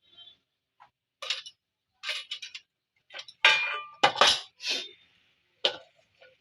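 Metal kitchen utensils and steel pots clinking and knocking together in a string of separate strikes, the loudest a little past the middle.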